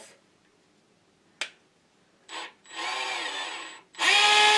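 DeWalt 18 V cordless SDS hammer drill run with no load on the variable-speed trigger: a click, then a short blip of motor whine, a longer run that rises and dips in pitch, and a louder, steady spin near the end.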